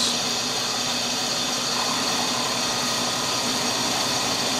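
Drill press running steadily, its cutter taking the final milling pass along the foot of a maple-and-ebony banjo bridge held in a jig.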